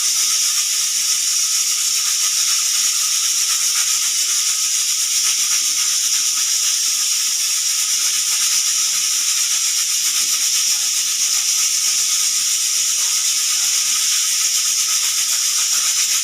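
Pressure cooker whistle letting off steam: a loud, steady, high hiss that holds without a break.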